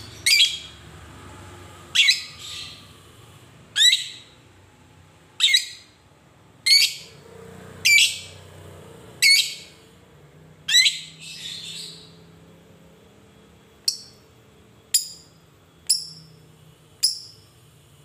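A caged Fischer's lovebird giving short, sharp, high-pitched calls, one every one to two seconds, then four shorter calls about a second apart near the end.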